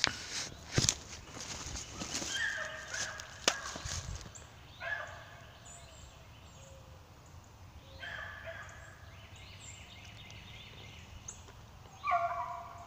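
Beagles baying in several short bouts, faint through the middle and louder near the end: the hounds giving voice as they work a rabbit's scent trail. Footsteps and brush crackle through dry leaves in the first few seconds.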